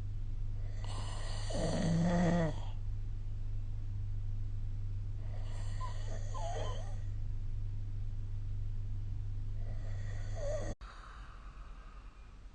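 A person snoring in sleep: three snoring breaths about four seconds apart, the first the loudest. A steady low hum underneath stops abruptly near the end.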